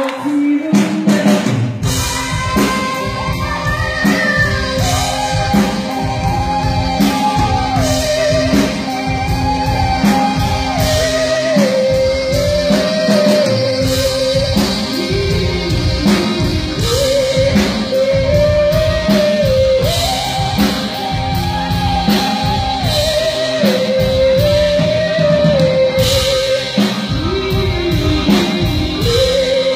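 Live rock band playing: drum kit and guitar under a singer holding long notes in phrases that step down in pitch.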